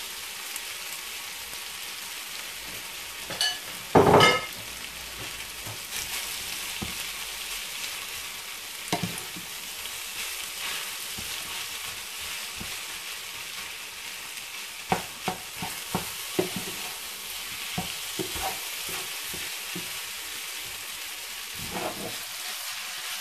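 Fried rice sizzling in a frying pan while a wooden spatula stirs and scrapes it, with short knocks of the spatula against the pan. About three and four seconds in come two sharp ringing knocks, the second the loudest.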